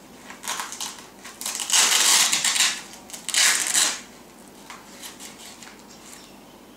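Hook-and-loop (Velcro) strap of a foam cervical collar being ripped open and pressed shut, a few rasping rips between about half a second and four seconds in, the two longest near two and three and a half seconds.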